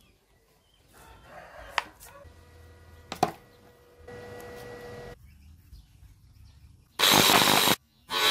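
Small electric angle grinder test-run after repair: a few handling knocks, then its motor runs loudly for just under a second, cuts off abruptly, and starts up again near the end.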